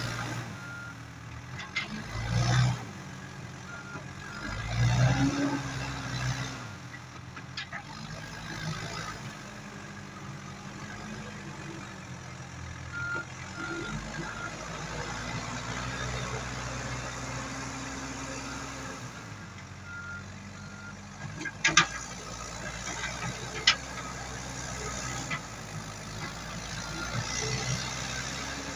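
Komatsu WB93R backhoe loader's diesel engine running and revving up under load as it works, with its reversing alarm beeping in short spells. Two sharp knocks come near the end.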